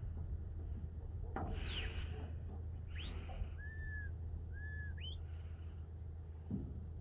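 A stockdog handler's whistle commands to a working border collie: a falling whistle, then a rising one, two short level notes and a final rising sweep, over a steady low rumble.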